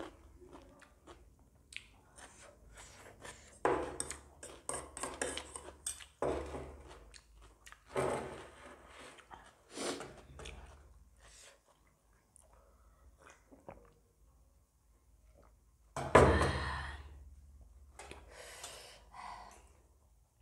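Close-miked eating sounds: chewing of momos and noodles with wet mouth smacks and clicks, in uneven spells, with one much louder sudden burst of noise about three-quarters of the way through.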